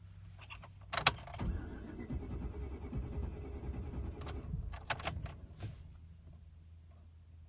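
A click, then an engine being cranked over for about three seconds without catching, then a few more clicks as the key or switch is worked: a no-start.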